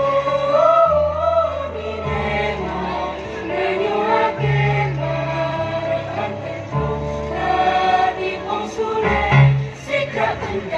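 A mixed choir singing a piece in several parts, with sustained low notes held beneath the voices.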